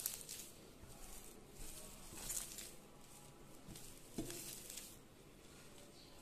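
A hand mashing and kneading boiled potato with crumbled dry-roasted neem leaves on a steel plate: faint, irregular squishing and rustling, with a light click against the plate about four seconds in.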